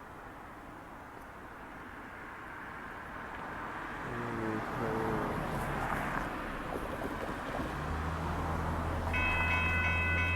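Amtrak Texas Eagle passenger train approaching, its rumble growing steadily louder, with the low hum of the diesel locomotive coming in during the second half. A steady chord of high ringing tones starts about a second before the end.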